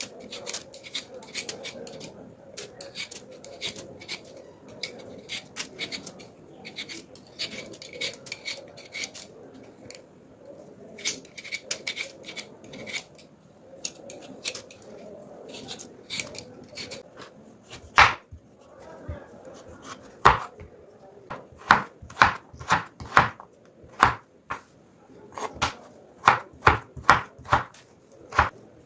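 Kitchen knife chopping food on a cutting board: many quick, light cuts at first, then from about 18 seconds in, louder, separate chops, roughly two a second.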